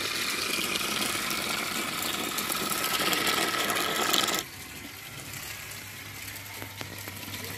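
Small geared electric motor of a homemade toy tractor whirring and rattling steadily as the toy drives over gravel. About four and a half seconds in, the sound suddenly drops to a quieter whir with a low hum.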